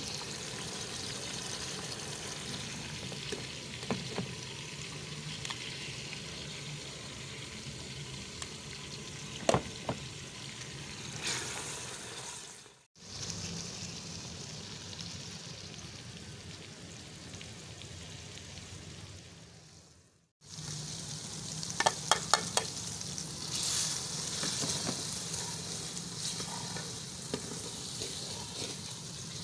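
Chopped tomatoes and green chillies sizzling steadily in hot oil in an aluminium pressure cooker, while a spoon stirs the mixture and clinks against the metal pot now and then. About three-quarters of the way through there is a quick run of clinks. The sizzle cuts out briefly twice.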